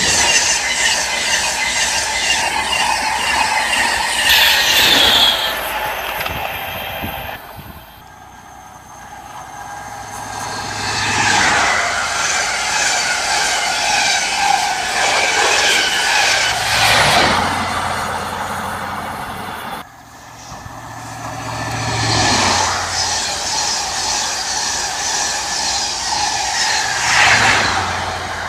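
Three express passenger trains passing at speed, one after another. Each pass is a rush of wheel and rail noise that swells and fades, with a sweeping pitch glide as it goes by. The last is an HST led by a Class 43 diesel power car, approaching loudly near the end.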